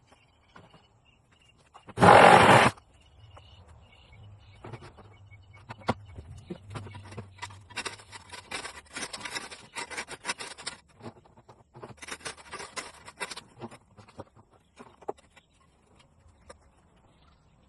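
Scraping and clattering of outdoor digging and rock work, in irregular clusters of clicks and rasps. About two seconds in there is one loud, brief rush of noise.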